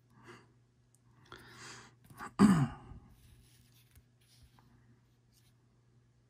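A man draws a breath, then lets out one loud voiced sigh about two and a half seconds in, its pitch falling. Faint ticks of trading cards being handled follow.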